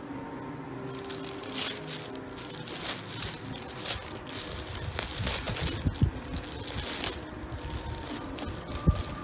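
A cat burrowing inside a thin plastic bag: the plastic crinkles and rustles in irregular bursts as it moves. A few dull thumps come from its body against the bag and floor, the sharpest near the end.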